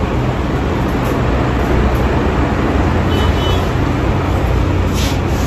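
Steady, loud low rumble with an even hiss above it, with no distinct events.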